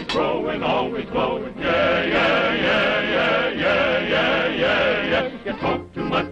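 Cartoon soundtrack of a chorus of men's voices chanting to music. The voices hold one long wavering chord from about a second and a half in until about five seconds, then break back into shorter sung notes.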